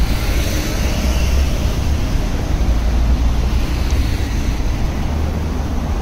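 Road traffic of a city street: buses and cars passing, a steady rumbling noise.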